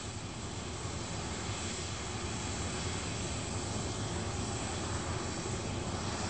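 Jet aircraft in flight: a steady rushing engine noise that slowly grows louder.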